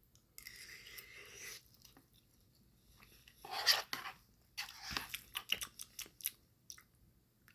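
Close-up eating sounds: a short breathy rush, then a louder wet chewing burst and a quick run of sharp mouth and utensil clicks.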